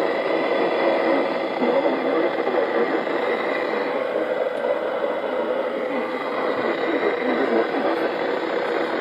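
NOAA Weather Radio broadcast on a weak signal: steady hiss and static, with the station's voice faint and garbled beneath the noise.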